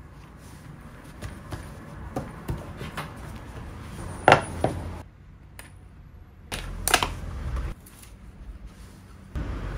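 Wooden workpieces being handled on a workbench: scattered light taps and knocks, with two louder knocks about four and seven seconds in, as a round hardwood frame is pressed down onto double-sided tape and a small wooden block set in place. A steady machine noise starts just before the end.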